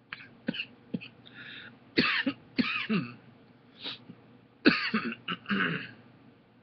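A man coughing in a long fit of about ten harsh coughs, some single and some in quick runs, with a few short wheezing breaths between them: the coughing that follows inhaling cannabis smoke from a bubbler pipe.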